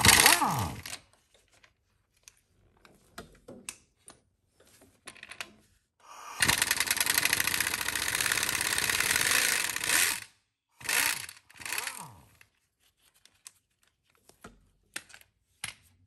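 Impact wrench undoing the timing-belt pulley bolts on a Honda 3.5L V6. A short burst winds down in pitch at the start, then about four seconds of rapid hammering from about six seconds in, then two brief bursts near twelve seconds.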